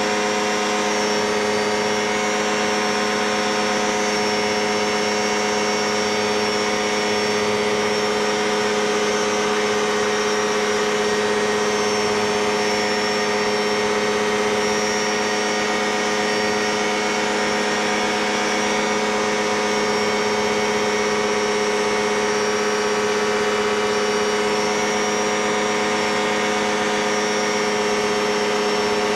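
Light aircraft's engine and propeller running steadily during the climb-out after takeoff: an even, unchanging drone over a constant hiss of air rushing past the open cockpit.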